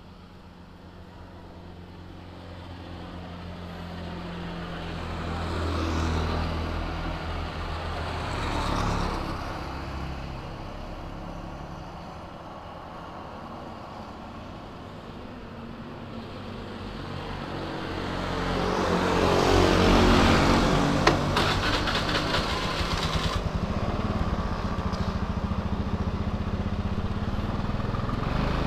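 Small motor scooter engine running on a road, with other vehicles passing in swells about 6, 9 and 20 seconds in, the loudest about twenty seconds in. It settles into a steady engine run over the last few seconds.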